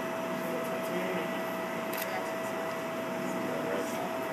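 Steady mechanical hum with a constant whine, with a single faint click about two seconds in.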